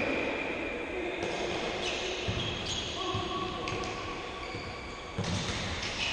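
Futsal being played on an indoor court: shoes squeaking on the floor in short high squeals, the ball thudding, and players calling out, echoing in a large sports hall. A louder knock comes about five seconds in.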